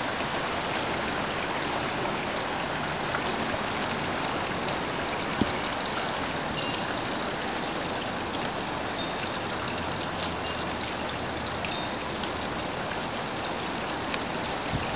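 Steady rushing hiss of strong wind during a heavy snowfall, with a few faint ticks.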